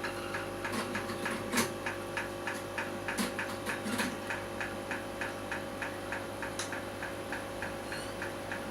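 Rapid, even mechanical ticking, about five ticks a second, over a steady low hum.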